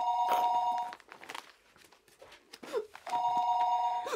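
Telephone ringing with a steady two-note electronic ring: two rings, each about a second long, about three seconds apart.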